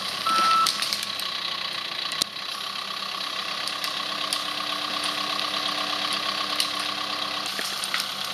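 John Deere 130G excavator's diesel engine running steadily under load as the machine digs, with one short beep of its motion alarm right at the start. A few sharp cracks punctuate it, and a steady tone joins in for a few seconds in the middle.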